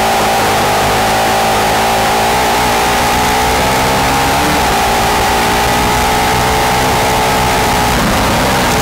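Formula SAE race car's engine running hard at high revs, heard on board as the car is driven at speed. The engine note holds mostly steady, with a brief dip in pitch near the end.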